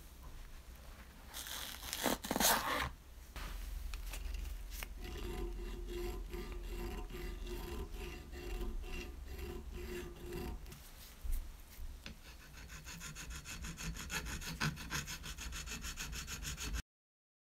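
Hand file rasping across a cast brass bottle opener in repeated back-and-forth strokes, smoothing its rough, poorly finished surface. There is a brief louder scrape about two seconds in. The strokes turn quick and rhythmic in the last few seconds and stop abruptly near the end.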